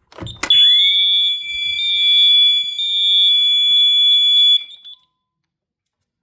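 Electronic alarm siren sounding one loud, piercing steady tone with a faint pulsing warble over it. It switches on with a click about half a second in and cuts off abruptly after about four seconds.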